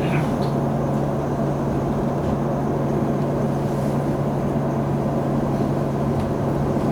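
Steady interior noise of a commuter train car: a constant low hum over an even rumble.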